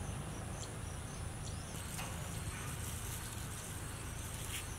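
Crickets chirping steadily, a high continuous trill whose pattern shifts about two seconds in, over a low steady hum.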